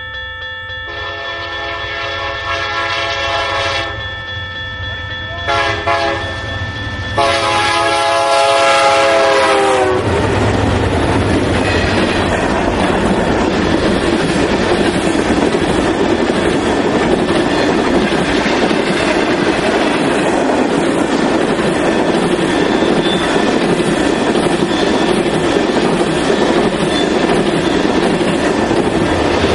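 Freight locomotive horn sounding a series of blasts for a grade crossing: long, two short, then a long one whose pitch drops as the locomotives pass about ten seconds in. Then the locomotives rumble past, followed by a long string of tank cars and hoppers rolling by with a steady rhythmic clickety-clack of wheels over the rail joints.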